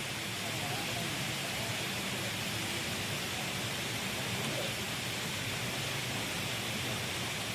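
Steady rainforest ambience: an even, unbroken hiss, with a couple of faint short calls.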